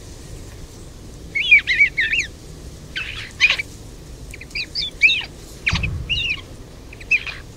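European starling giving bursts of short, rising-and-falling chirping calls while held in the hand and let go. There is a brief low thump on the microphone about six seconds in, at the moment of release.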